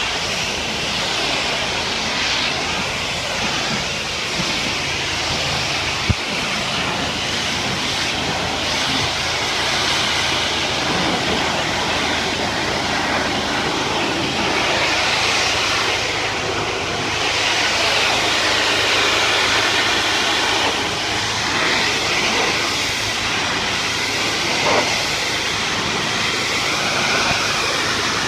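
Pressure washer running: the steady hiss of its high-pressure water jet spraying against a house's gutter, window and brick wall, over a low, even machine hum. One short sharp click about six seconds in.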